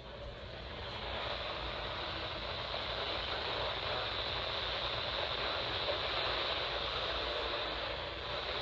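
Steady radio static: a hiss from a receiver with no voice coming through, swelling over the first second and then holding.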